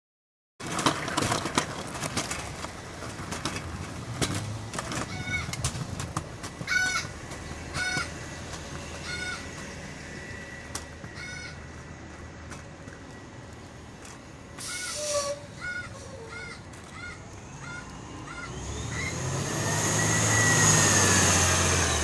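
A Blue Bird school bus's Cummins Westport ISL-G natural-gas engine running, then swelling to its loudest over the last few seconds with a rising whine as the bus accelerates away. A bird chirps repeatedly in the background through the middle of the stretch.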